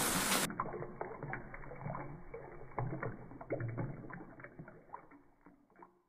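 Water in a small bowl where Java sparrows are bathing: a hiss of running water for the first half second, then muffled, irregular small splashes and drips that fade out near the end.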